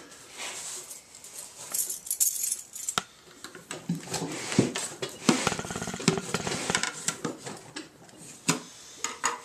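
Metal gallon paint cans and a plastic roller tray being handled: irregular knocks, clinks and rustling, with a quick rattle about halfway through.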